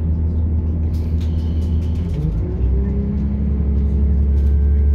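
British Rail Class 170 Turbostar's underfloor diesel engine heard from inside the carriage, a deep steady drone that rises in pitch about two seconds in and then grows louder as the engine takes power.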